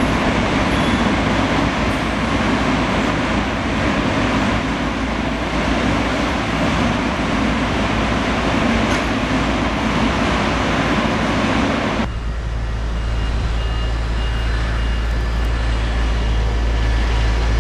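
Steady industrial machinery noise of a concrete-products production line, a dense, continuous rumble and hiss. About two-thirds of the way through it cuts off abruptly and gives way to a low, steady rumble, as of wind on the microphone outdoors.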